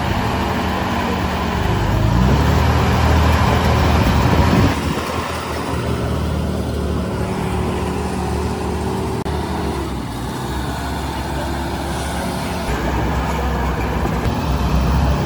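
Heavy diesel engine of earthmoving machinery running, revving up over a couple of seconds and dropping back suddenly about five seconds in, then running steadily.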